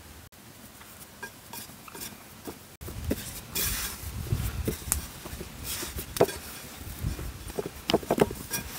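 Hands kneading and pressing down risen bread dough in a plastic bowl: soft, irregular squishing and rustling, with sharp knocks of hands and dough against the bowl, louder after about three seconds.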